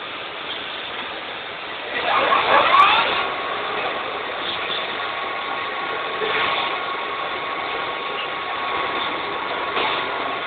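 CNC lathe running: about two seconds in it gets louder with a rising pitch, then settles into a steady high whine over the machine noise.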